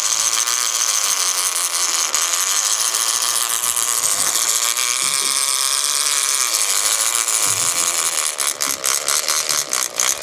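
Fishing reel drag screaming in a steady high-pitched whine as a hooked shark runs and pulls line off. Near the end the whine breaks into rapid separate clicks, about six a second, as the run slows.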